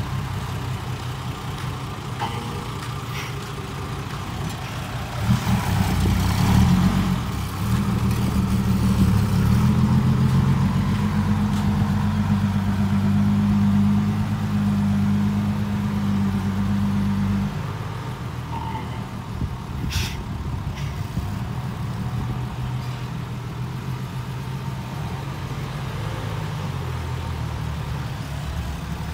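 Loaded Isuzu dump truck's diesel engine working as the truck reverses. It grows louder and heavier about five seconds in, then eases back to a lower, steady running after about seventeen seconds. One short sharp click or hiss comes about twenty seconds in.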